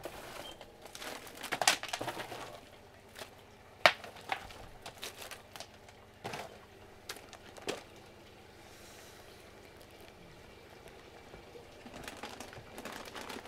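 Goods being handled and taken off shop shelves: scattered rustling of plastic packaging with a few sharp clicks and knocks, the sharpest about four seconds in, then more rustling near the end after a quieter stretch.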